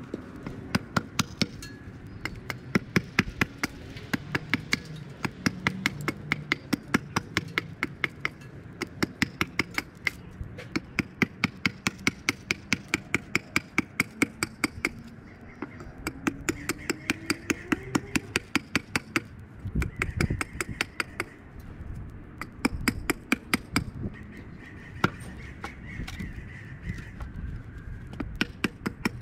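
A hatchet chopping a wooden branch held upright on a stump chopping block, in quick, even, light blows about two to three a second.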